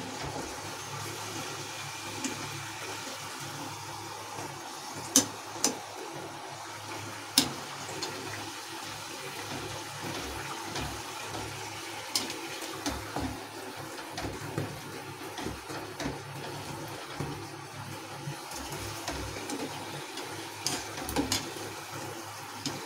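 Hot oil sizzling and bubbling steadily in an aluminium kadhai as a spinach-dough katori cup deep-fries, with a few sharp clicks of the metal spider and mould against the pan.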